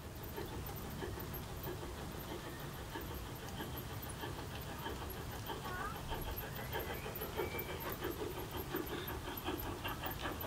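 G-scale model steam locomotive running in with its sound unit chuffing steadily, the rhythm growing louder as the train approaches, over the rumble of wheels on the track.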